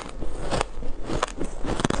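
Ice being bitten and crunched: a series of sharp, brittle crunches, several within two seconds.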